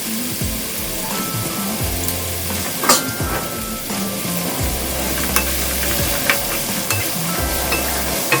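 Food sizzling as it is stir-fried in a pan, with a few sharp clicks of a utensil against the pan, over background music.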